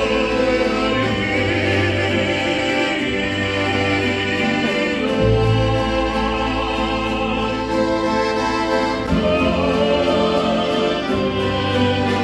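Background music: a choral or operatic piece with sung voices over orchestra, notes held for seconds at a time.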